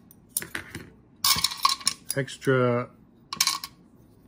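Small metal sewing-machine parts, presser plates and feet, clinking and rattling against each other and the plastic tray as they are picked through in an accessory box, in a few uneven bursts of clatter.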